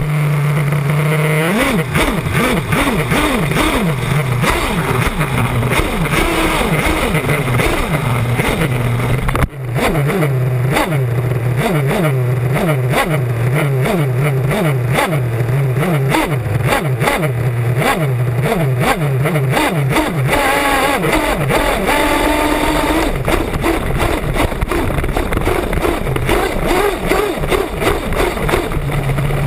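Small nitro glow engine of a 1/8-scale off-road RC buggy, heard from on board. It holds a steady idle at first, then revs up and down over and over, the pitch rising and falling, with a brief drop about nine seconds in.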